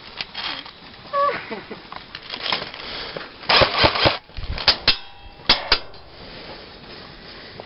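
A quick cluster of sharp clicks and rattles about three and a half seconds in, then four single sharp clacks over the next two seconds.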